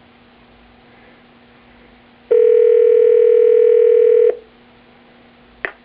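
Telephone ringback tone heard over the line: one steady two-second ring tone about two seconds in, the call ringing at the other end, with faint line hiss around it. A sharp click near the end.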